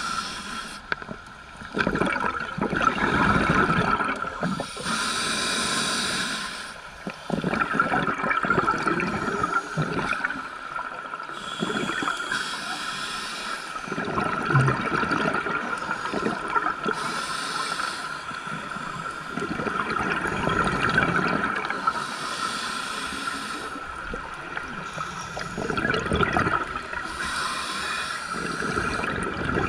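A scuba diver's regulator breathing heard underwater: a rush of exhaled bubbles every few seconds, with quieter breathing noise between, over a steady faint tone.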